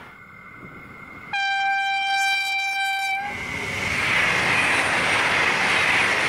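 V/Line VLocity diesel multiple unit sounding its horn once, a single steady blast about two seconds long, starting about a second in. The rushing noise of the train passing at speed then swells up and stays loud.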